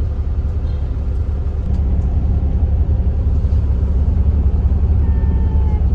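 Steady low rumble of a motor vehicle on the move, even in level throughout.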